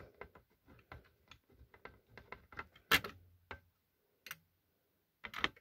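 Faint, irregular clicks and taps of hard plastic being handled as the snap-on cover is worked onto a vintage smoke detector, with a louder click about three seconds in.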